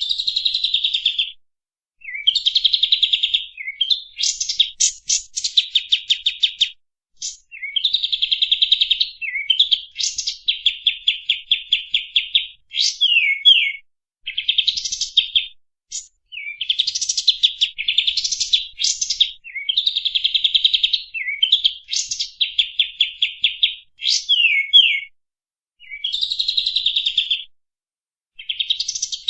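A kapas tembak songbird singing long runs of rapid, machine-gun-like trills, phrase after phrase of one to two seconds with brief pauses between, some phrases ending in quick sweeping notes.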